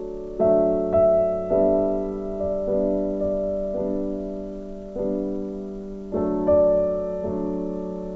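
Background music: slow piano chords, each struck and left to fade.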